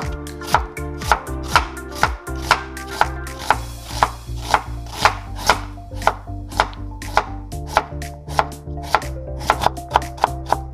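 Chef's knife slicing onion and then cucumber on a wooden cutting board: sharp, regular strikes about two a second, quickening near the end, over background music.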